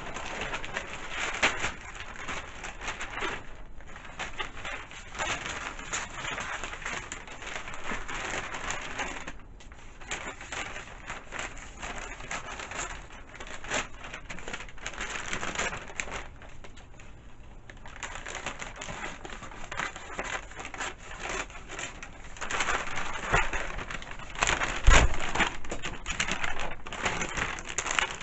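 Wrapping paper rustling and crinkling as it is unwrapped and handled, with small taps and scrapes, and one louder thump near the end.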